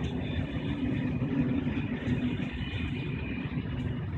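Corail passenger coaches of an Intercités train rolling past on the rails: a steady rumble of wheels on track, with a faint high tone running over it.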